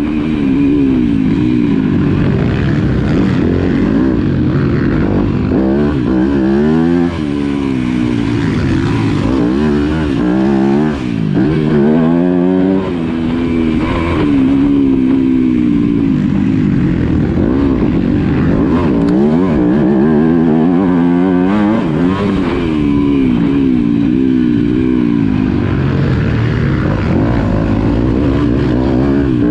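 Yamaha motocross bike's engine revving hard, its pitch rising and falling again and again as the throttle is opened and closed through the track's turns and straights.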